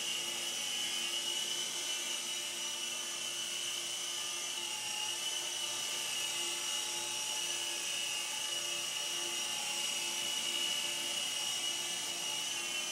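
Small toy RC helicopter (Candide Lightning) in flight, its electric rotor motors giving a steady high-pitched whine that wavers slightly in pitch as it climbs and drops.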